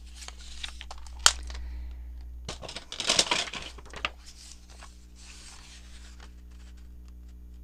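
Paper being handled on a work surface: a single sharp tap about a second in, then a couple of seconds of paper rustling and crinkling.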